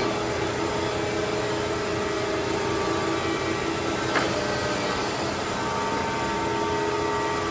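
Mattison surface grinder running, a steady machine hum with several held tones. A single sharp click about four seconds in.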